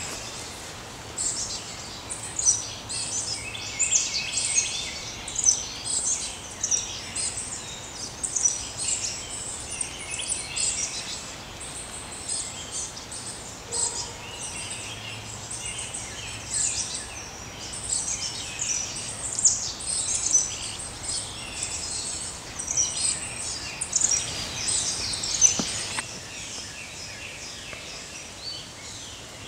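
Several songbirds singing and calling together, a dense run of quick high chirps and trills, over a steady background hiss.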